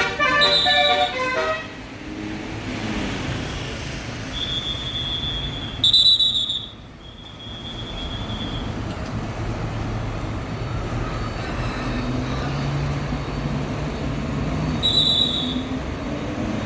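A tour bus's basuri (telolet) multi-tone horn plays the last notes of a tune in the first second or so. Then the bus engine runs and swells for a few seconds near the middle-to-end, while several short high-pitched tones sound, the loudest about six seconds in.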